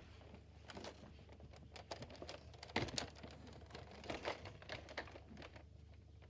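Irregular light plastic clicks and rustling from a Nerf blaster being handled and loaded, the loudest cluster about three seconds in.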